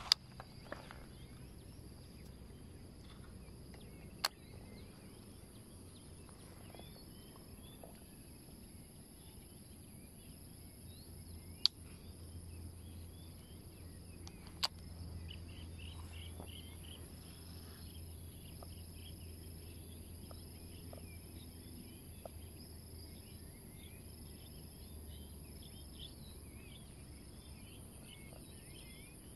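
Insects keeping up a steady high-pitched drone, with small birds chirping from about halfway through. Four sharp clicks stand out, the loudest sounds.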